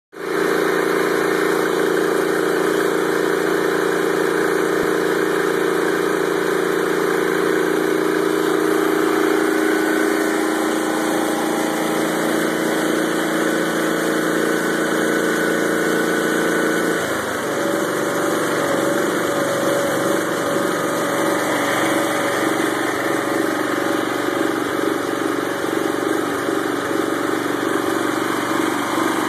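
Freshly rebuilt Wisconsin engine of a Bolens 1250 garden tractor running steadily; about seventeen seconds in its note shifts as the engine speed changes, then it keeps running evenly.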